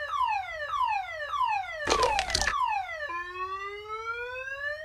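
Car alarm sounding as a repeating falling whoop, a little under two a second, which switches about three seconds in to one long, slowly rising tone. A short loud burst of noise cuts across it about two seconds in.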